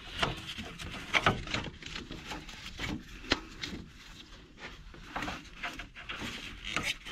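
Rubber serpentine belt being pulled off the engine's pulleys by hand, with scattered rubbing, light clicks and knocks.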